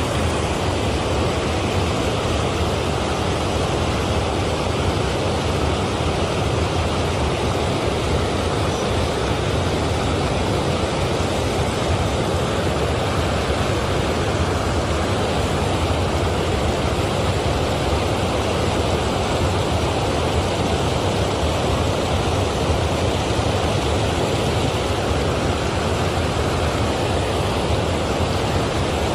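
Water rushing steadily over a low concrete river weir, a loud, even sound of falling and churning water that does not change.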